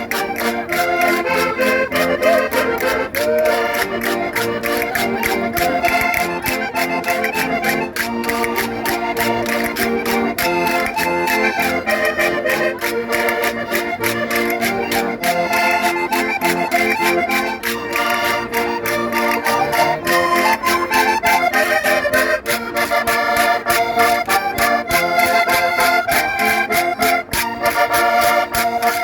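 Concertinas playing a lively traditional folk dance tune, chords and melody held on the reeds, over a steady beat of short clicks.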